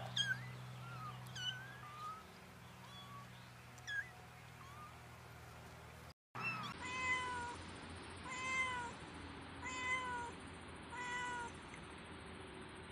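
Kittens mewing, a few short high mews scattered here and there. After a brief cut-out, a long-haired ginger cat meows over and over, one short arching meow roughly every second.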